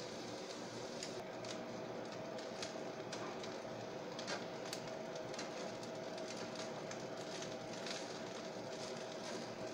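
Fried rice being stir-fried in a wok: a steady sizzle, with a spatula scraping and knocking against the pan at irregular moments.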